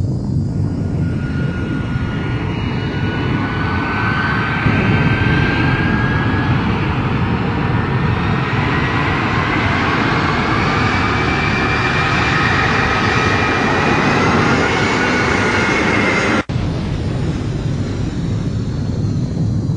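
Boeing 747 jet engines running: a steady roar with a high whine of several tones that slowly rise in pitch. The sound cuts out for a split second near the end, then carries on.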